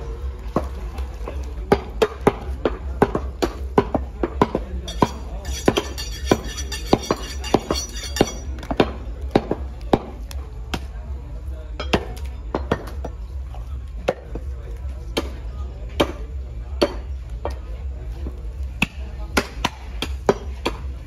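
Large butcher's knife chopping beef on a wooden log block: a string of sharp chops, irregular, one or two a second, over a steady low hum.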